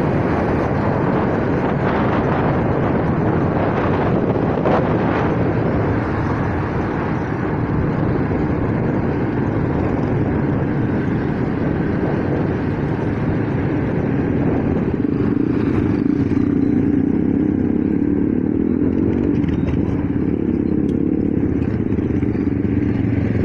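Kawasaki Fury 125 motorcycle engine running under way, with wind rushing over the microphone. About fifteen seconds in the rush eases and the engine's steady hum comes forward.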